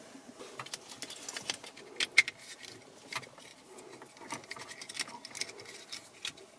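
Plastic wiring-harness connectors and cables being handled: an irregular run of small clicks and rustling, with one sharper plastic click about two seconds in.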